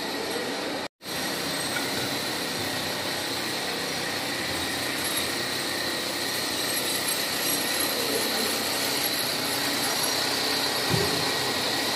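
Steady whirring of electric fans, with a faint high hum running through it. The sound drops out for a moment about a second in.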